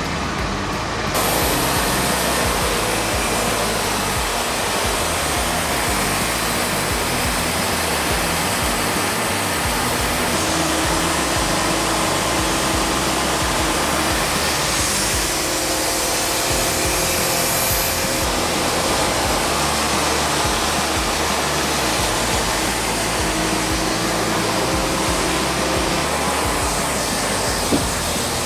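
Wood-Mizer LT40 Wide band sawmill running, its band blade sawing steadily through a monkey pod log, stepping up in loudness about a second in. A single sharp knock near the end.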